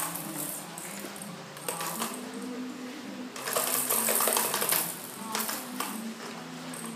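Plastic baby walker and its rattle-toy tray jingling and clattering as it is handled and knocked: a few separate clacks, then a dense run of jingling clatter about halfway through, the loudest part.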